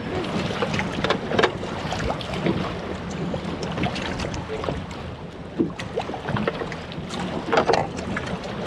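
Wind buffeting the microphone over water lapping at a small boat, with scattered clicks and knocks as a dip net scoops live shrimp out of the livewell.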